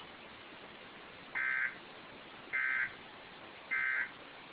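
Emergency Alert System end-of-message code: three short bursts of SAME digital data tones, about a second apart, over a steady hiss. They mark the end of the alert broadcast.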